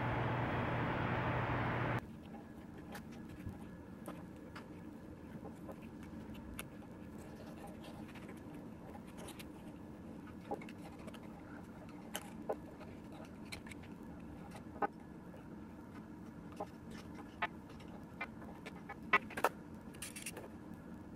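Hand tools, a razor blade and a pick, scraping old gasket sealant off a metal transmission shifter housing: scattered light clicks and scrapes over a quiet background, a few sharper ones near the end. For about the first two seconds a steady rushing noise covers it, then cuts off.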